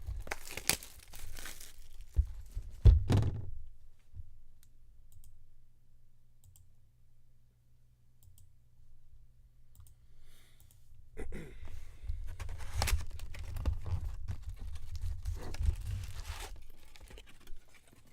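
Trading card packaging being torn open and handled: a burst of tearing and crinkling, a lull of several seconds, then more rustling and clicking of wrappers and cards.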